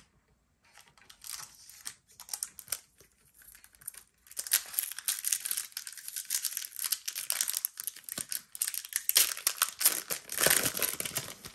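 Foil wrapper of a Pokémon Lost Origin booster pack crinkling as it is handled and torn open: a few scattered crinkles at first, then dense, continuous crinkling and tearing from about four seconds in.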